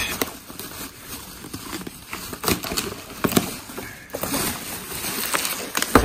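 Scissors snipping through packaging and ties, with rustling and a few sharp clicks.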